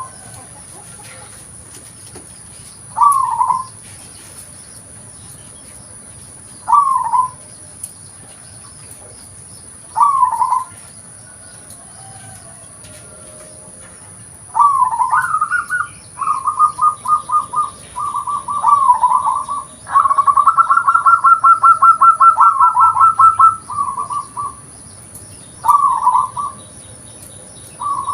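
Zebra dove (local perkutut) cooing. Single short coos come about every three and a half seconds, then about halfway in it breaks into a long run of rapid, evenly repeated coo notes before returning to short coos.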